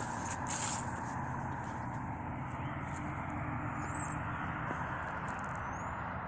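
Steady low rumble of a distant engine or vehicle, with a couple of faint, short bird chirps high above it.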